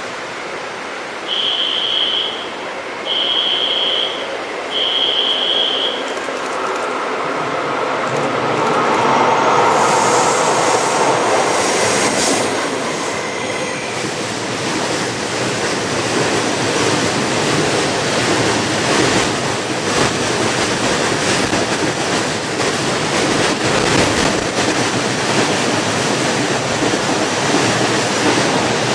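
Freight train hauled by a Taiwan Railway E500 electric locomotive running through a station without stopping: a rising rumble of wheels on rail that grows loud as the wagons go by, with clacking over the rail joints. Three high, steady beeps of about a second each sound before the train arrives.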